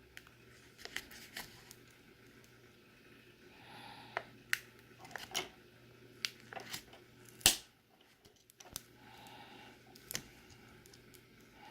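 Hands handling a tablet and its replacement battery during a repair: scattered small clicks and taps with a few soft rustles, and one louder knock about seven and a half seconds in. A faint steady low hum runs underneath.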